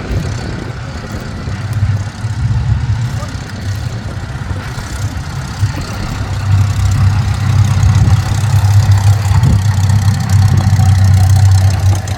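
Hawker Hurricanes' Rolls-Royce Merlin V12 engines running at taxiing power: a deep, steady drone that grows louder about six seconds in.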